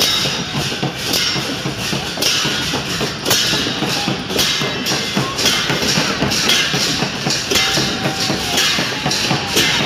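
Dense festival procession crowd noise, with percussion crashing in an uneven beat about once a second.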